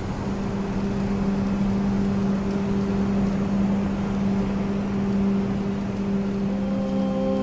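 Ambient soundtrack drone: one steady low note with an overtone, held over an even rushing noise. Near the end further, higher tones join in.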